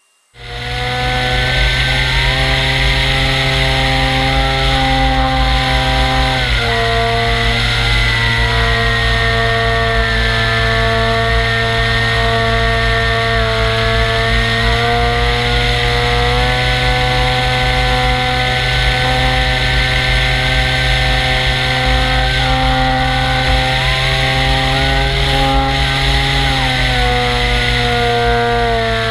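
Model airplane's engine and propeller running steadily at high power, heard from on board with wind rushing past. The pitch drops slightly about six seconds in and again near the end, as the throttle is eased.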